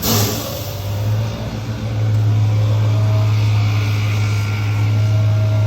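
School bus engine running with a loud, steady low drone that gets a little louder about two seconds in, and a short hiss right at the start.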